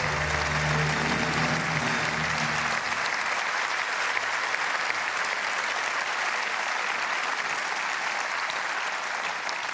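Audience applauding steadily, with low music fading out about three seconds in.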